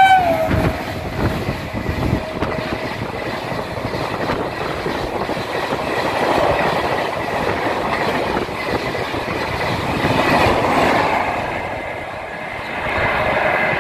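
WAP-7 electric locomotive's horn cutting off with a falling pitch as it passes at speed, followed by a long rake of LHB passenger coaches rushing past with rapid clickety-clack of wheels over the rail joints. The rushing dips briefly near the end as the train pulls away.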